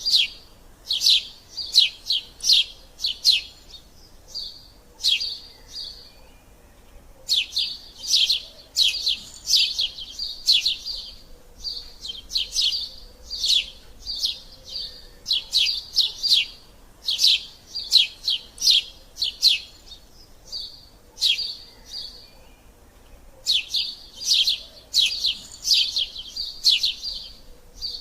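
Eurasian tree sparrows chirping in fast runs of short, sharp chirps, several a second, broken by brief pauses: the busy chatter of sparrows fighting.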